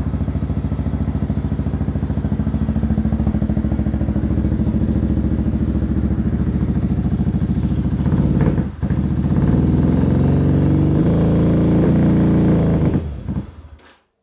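Motorcycle engine idling shortly after a cold start, with a brief dip about nine seconds in, then running a little louder and uneven before dying away near the end.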